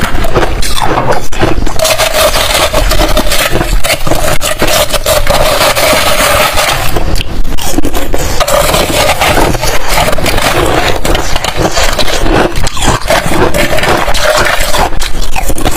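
Metal spoon scraping across a large block of balloon ice: a continuous, loud, rasping scrape. A steady tone sounds over the scraping for a few seconds from about two seconds in.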